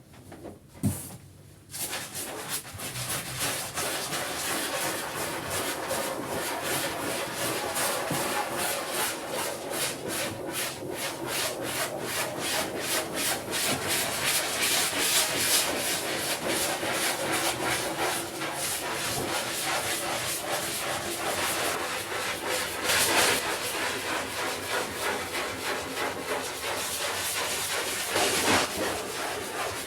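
Scrubbing on a rug in rapid repeated rubbing strokes, starting about two seconds in.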